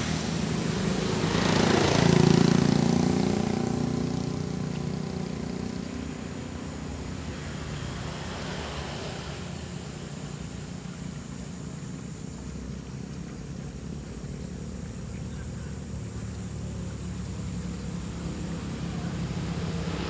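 A motor vehicle driving past, loudest about two seconds in, then a steady low engine hum that grows again near the end as another vehicle approaches.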